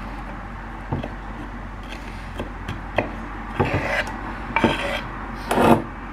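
Kitchen knife blade scraping across a wooden cutting board, sweeping diced onion into a bowl. A few light taps come in the first half, then several longer, louder scrapes from about halfway through.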